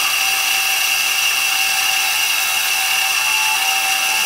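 Mini lathe driven by its 550 W DC motor, running at a steady speed with a steady high whine over a hiss, while the cutting tool takes a light pass off a plastic pulley on an 8 mm shaft.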